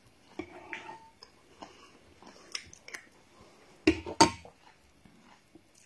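Metal spoon clinking and scraping in a bowl, in scattered light clicks, with a brief ringing clink about a second in. About four seconds in come two sharper knocks close together, the loudest sounds here.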